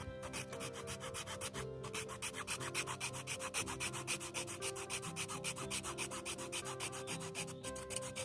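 A small saw cutting through a wooden chopstick, its blade rasping back and forth in quick, even strokes, several a second.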